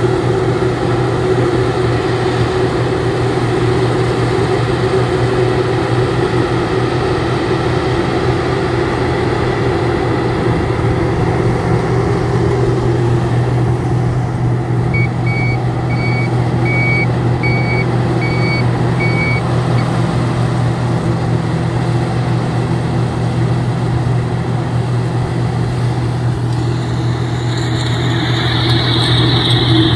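Rice combine harvester's engine running steadily, with a run of short, evenly spaced beeps for a few seconds midway.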